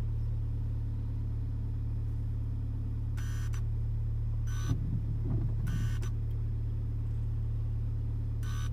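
Mercedes-AMG GLA 45's turbocharged four-cylinder idling, heard as a steady low hum inside the cabin, with the performance-exhaust valve held open by a disconnected connection. Five short high-pitched bursts come at uneven intervals, and a few soft knocks come about halfway through.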